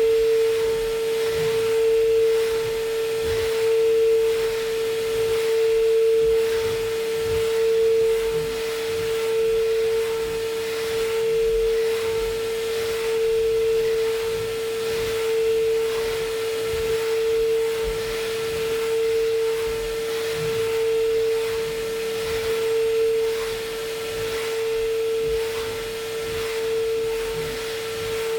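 Brother SPEEDIO S500Xd1 machining center high-speed milling an aluminum impeller in simultaneous 5-axis motion: a steady whining tone from the spinning cutter over cutting noise, swelling and easing about every two seconds as the tool sweeps back and forth.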